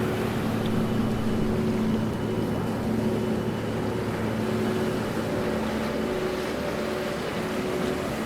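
Steady rush of sea water with a low, steady hum running through it.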